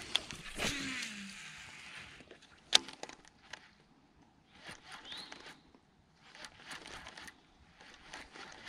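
Baitcasting reel being cranked in short bursts of about a second, three times, while a weightless fluke is worked back through the water. Before that there is a fading rushing noise, and a single sharp click about three seconds in.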